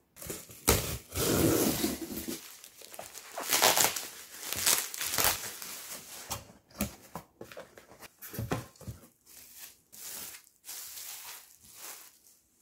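Bubble wrap and plastic packaging rustling and crinkling in irregular bursts, with some tearing, as boxes and a glass storage canister are unwrapped by hand.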